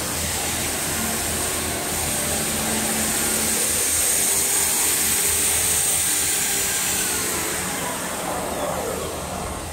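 Steady mechanical noise of workshop machinery running, a constant hiss over a low hum, with a sweep in pitch near the end.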